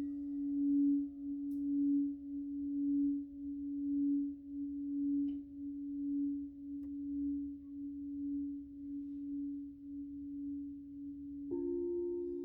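Crystal singing bowl ringing with one steady, pure tone that swells and fades about once a second. Near the end a second, higher-pitched bowl comes in sharply and sounds alongside it.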